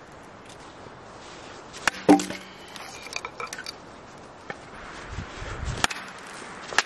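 Split firewood being handled: pieces clack and knock together, with two sharp hollow knocks that ring briefly, one about two seconds in and one near the end, and a few lighter clicks between them.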